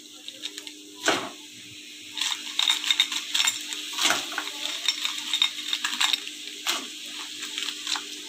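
Raw crab pieces tipped into a hot kadai of onion-spice masala and turned with a metal spatula: a few sharp knocks of shell and spatula against the pan over a sizzle.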